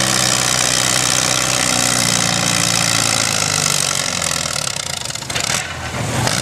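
Vintage farm tractor engine running hard under full load while pulling a weight sled. Its note sags slightly in pitch and fades about four seconds in, and the sound changes abruptly shortly before the end.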